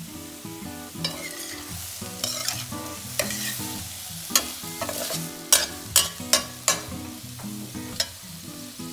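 A metal spatula stirring and scraping shrimp, peas, corn and carrot around a sizzling stainless steel pan, with several sharp clanks of the spatula against the pan in the second half.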